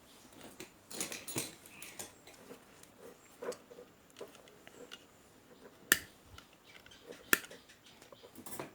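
Scattered small clicks and taps of parts and tools being handled, with two sharp clicks standing out in the second half.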